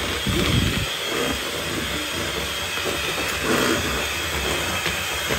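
Electric hand mixer running steadily, its beaters whirring through thick chocolate cake batter in a stainless steel bowl.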